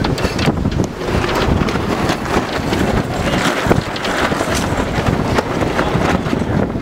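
Heavy wind noise buffeting the microphone aboard a sailboat under way, with scattered knocks and clicks from crew and deck gear.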